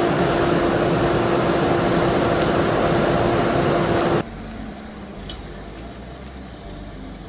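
Coal forge's electric air blower running, a steady rush of air with a constant hum, as the pieces heat toward welding heat. About four seconds in it drops abruptly to a much quieter rush.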